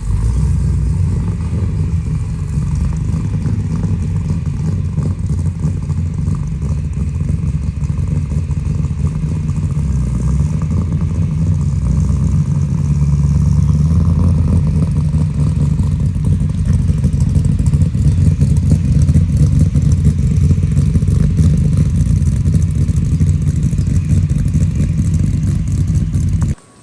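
Ford F1 pickup truck's engine running, a loud, steady low rumble that cuts off suddenly near the end.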